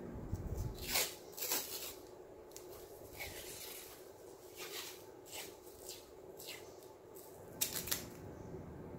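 White athletic tape being pulled off the roll and laid around the ankle: a string of short ripping sounds, the loudest two close together near the end.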